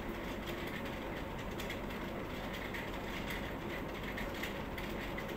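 Steady mechanical background noise with faint irregular ticking.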